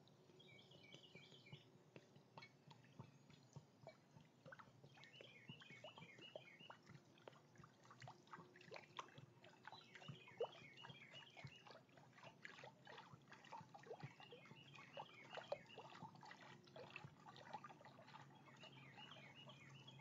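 Faint splashing and trickling of water poured from a plastic bottle into a stone birdbath. A bird sings a short, rapid run of repeated notes about every four to five seconds.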